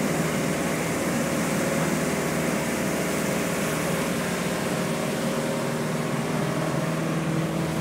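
Speedboat engine running steadily at cruising speed, under a constant rush of wind and water.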